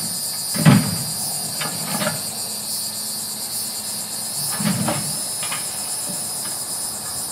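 Heavy clunks of concrete railroad cross ties being set down and knocking together under a truck-mounted grapple, the loudest about a second in and another near five seconds, over a steady high drone of insects.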